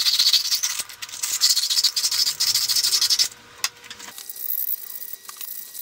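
Emery paper rubbed back and forth over copper pipe by hand, a scratchy hiss in quick repeated strokes, cleaning the copper bright for soldering. The rubbing stops about three seconds in, followed by a click and only faint handling noise.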